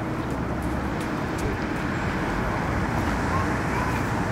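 Steady low engine rumble with no distinct events.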